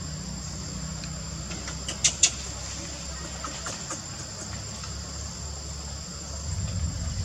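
Steady high-pitched drone of insects, with two sharp clicks close together about two seconds in and a few fainter ticks after.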